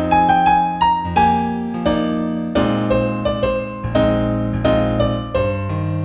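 New age piano music: a slow melody of struck notes over held bass notes.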